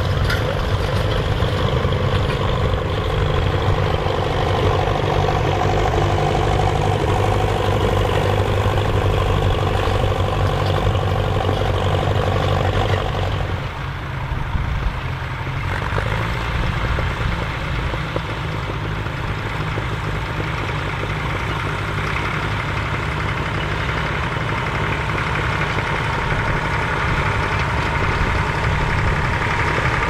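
Massey Ferguson 35 tractor engine running steadily under load, pulling a two-furrow plough through the field. About halfway through, the engine note changes and becomes a little quieter.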